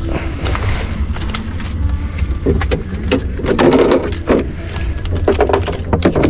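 A hand dip net on a bamboo pole knocking and scraping against a round boat's hull as fish are emptied from it. It makes a run of sharp knocks and rustles, with a steady low rumble underneath.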